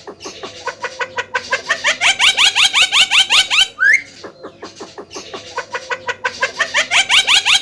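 Javan myna (jalak kebo) singing: two fast runs of short rising chattering notes, about nine a second, separated by a single upward whistle.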